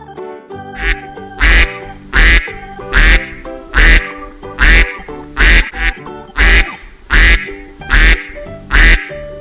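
Duck quacks repeated at a steady beat, about one every three-quarters of a second, loud over background music.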